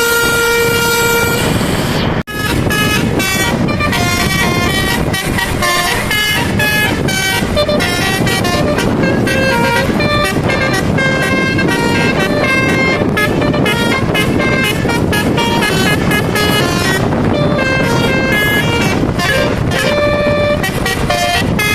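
Telolet basuri musical air horn on a truck or bus playing a quick tune of short stepped notes over a steady background noise. The tune cuts out for an instant about two seconds in, then carries on.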